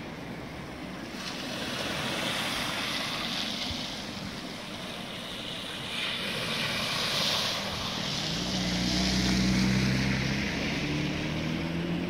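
A BMW saloon driving slowly through a shallow flooded stretch of road, its tyres swishing through the water. In the second half its engine hum swells as it passes close.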